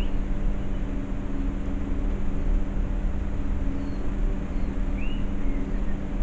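Steady low mechanical hum with a constant drone and a low rumble, and a few faint high chirps, one about five seconds in.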